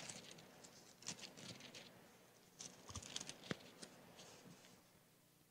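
Faint rustling of Bible pages being leafed through, with two soft taps about three seconds in.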